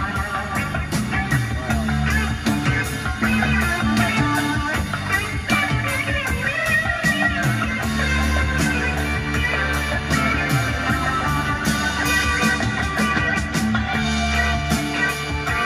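Guitar-led rock music with a steady beat, played through the NAD 304 integrated stereo amplifier and a pair of small speakers.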